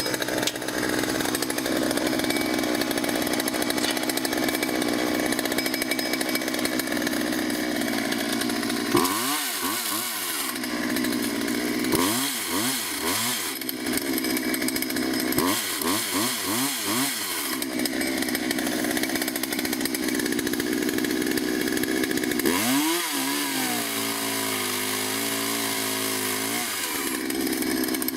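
Gas chainsaw cutting a tree branch: it runs at high speed, and four times the engine note drops and sweeps back up as the throttle is eased off and opened again, the last time holding a lower steady note for a few seconds.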